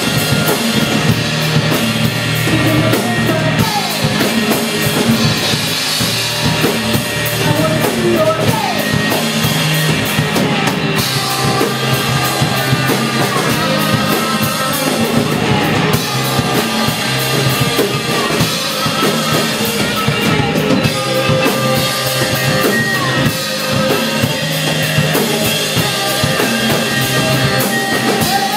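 Live rock band playing loud, with drum kit and electric guitar.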